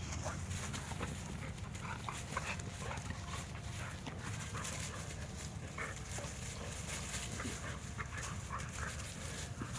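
Pocket American bully dogs playing, with faint short dog noises and small scuffs over a low steady rumble.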